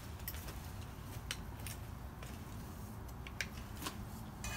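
Scattered light clicks and taps over a low background rumble as rusty steel bar stock is handled and set up on a miter saw, with a quick run of clicks near the end. The saw is not running.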